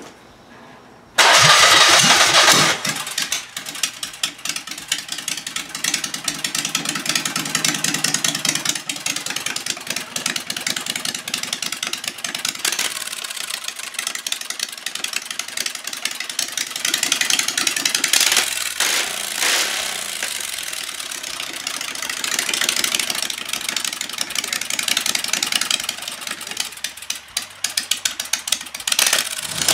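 Generac home-standby V-twin engine, converted to run on gasoline with carburetors, starts about a second in and runs loudly through short straight open exhaust pipes, its speed rising and falling a few times.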